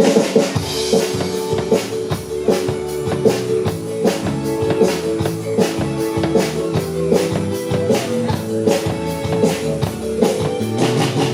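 Live band playing an instrumental passage without vocals: a drum kit keeps a steady beat under held, sustained chords.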